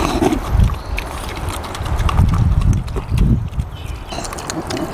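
Two piglets eating scraps from a rubber feed pan: rapid wet chomping and clicking of snouts and jaws in the food, with a few low grunts.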